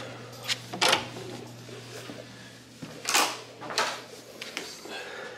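Hotel room door being unlocked with a key card and opened: a few sharp clicks from the electronic lock and lever handle about half a second and a second in, then two louder knocks or rustles around three and four seconds in as the door is pushed through.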